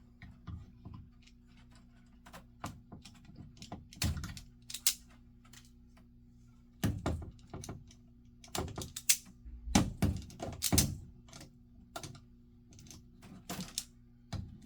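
Irregular clicks, snips and small clattering of hand tools and stiff wire being handled, as wires are trimmed and stripped for hookup to the panel's terminals. A steady low electrical hum runs underneath.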